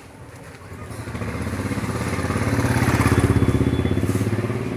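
A motorcycle passing close by. Its engine gets louder, is loudest about three seconds in, then fades.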